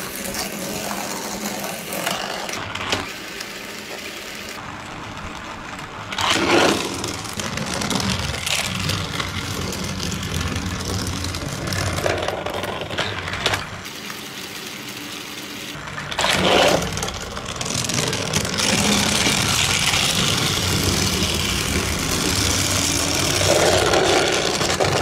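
Small electric motor of a battery-powered toy bus whirring as the bus runs along plastic track. It grows louder for a moment twice, about a third and two-thirds of the way through.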